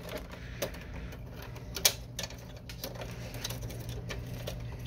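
Small plastic clicks and light rattling from hands working the scanner's wiring and ribbon-cable connectors inside a partly disassembled Canon Pixma MG5220 inkjet printer, with a sharper click a little under two seconds in. A low steady hum runs underneath.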